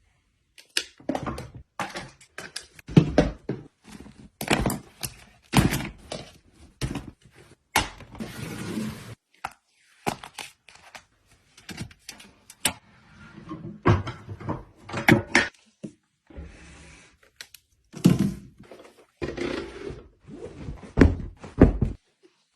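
Fridge being stocked and organised: containers and packages are set down, slid and knocked into place in an irregular run of clacks, knocks and thuds, with a stretch of rustling about eight seconds in.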